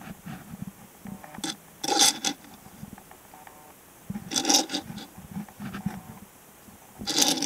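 A die-cast model stock car being slid and turned by hand on a wooden tabletop: three short scrapes a couple of seconds apart.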